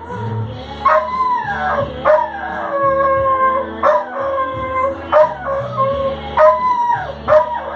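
Dog howling along to music: long drawn-out howls, some held and one sliding down in pitch, over a song with a steady beat.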